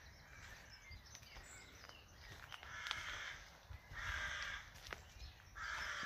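Three harsh bird calls, each about half a second long and about a second apart, beginning about halfway through, over faint outdoor background noise.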